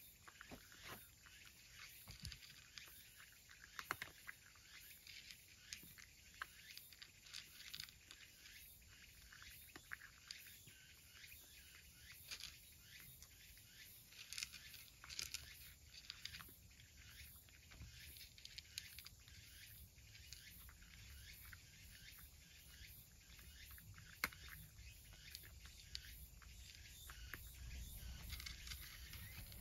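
A cat eating tuna from a dish: faint, irregular small clicks and smacks of chewing and licking, with a low rumble swelling near the end.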